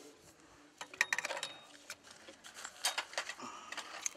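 Small metallic clicks and clinks from copper pipe and brass plumbing fittings being handled and fitted at a water heater's cold-water inlet: a quick run of clicks about a second in, and another longer run near the end.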